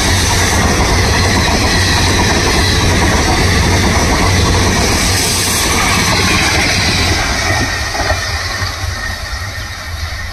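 Passenger train coaches rushing past close by at speed, a loud, steady rumble and rattle of wheels on rails. The noise falls away in the last two or three seconds after the final coach has passed.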